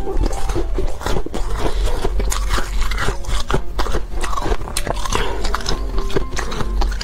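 Biting and chewing a block of ice close to the microphone: a dense, irregular run of sharp cracks and crunches.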